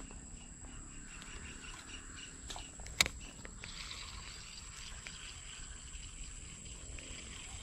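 Insects chirring steadily, a thin high drone, with one sharp click about three seconds in.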